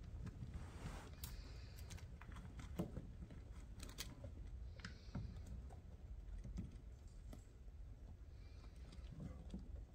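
Faint, irregular scratching and light clicks of small rodents moving and scrabbling in paper bedding, over a low rumble.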